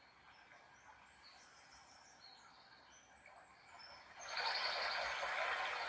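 Nature background recording: faint, scattered bird chirps over quiet ambience, then about four seconds in a steady rushing noise, like running water or wind, swells in and stays.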